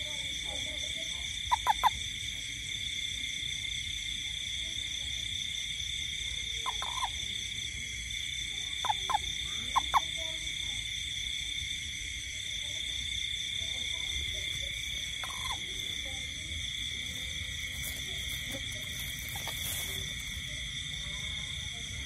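Frogs calling at night: a steady high-pitched chorus throughout, broken by short, loud chirps. There are three in quick succession near the start, a few more in the middle and one more later.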